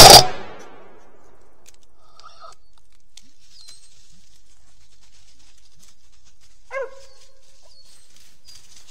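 A single gunshot right at the start, loud and sharp, dying away within half a second. After it, a Mountain Cur squirrel dog barks once about two seconds in and again near the seventh second.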